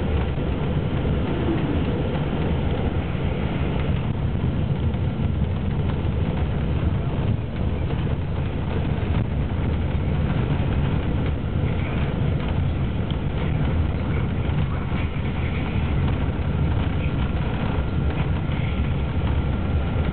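Steady low rumble of a coach bus cruising at highway speed, its engine and tyre-on-road noise heard from inside the cabin.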